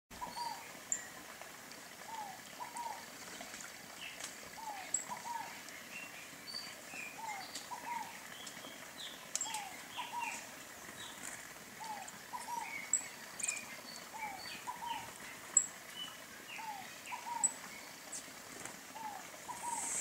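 Several wild birds calling: a pair of short falling notes repeats every second or two, with higher chirps and sharp high chips scattered over it.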